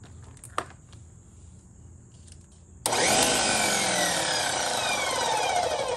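A click, then about three seconds in an electric pressure washer's motor and pump start suddenly and run loudly, with a whine that sinks in pitch. The machine runs when wired straight to the mains without its GFCI plug, showing the motor is sound and the water-damaged GFCI plug is the fault.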